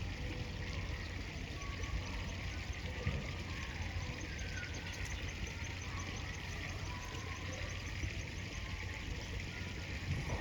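River water rushing steadily around the angler standing midstream in a fast current. A faint high ticking repeats about four times a second from about halfway through.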